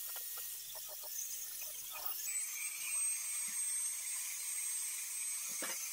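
High-speed power tool running with a steady high-pitched whine that settles in about two seconds in.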